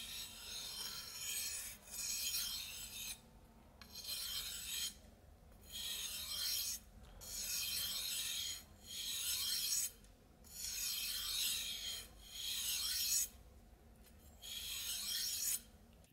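Steel machete blade being sharpened on a whetstone: a rasping scrape of steel on stone, repeated in about nine long strokes of roughly a second each, with short pauses between.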